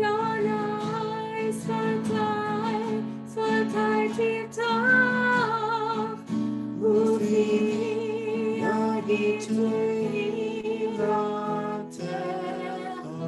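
A woman and a man singing a prayer song together over instrumental accompaniment, some held notes wavering with vibrato.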